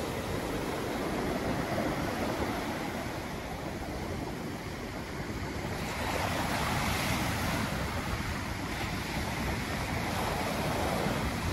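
Sea waves and wind: an even rushing that swells about six seconds in.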